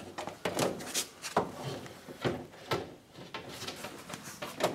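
Irregular scrapes and knocks of window glass being worked by hand into the channel tracks inside a Jeep Wrangler door, about seven short sliding bumps at uneven spacing.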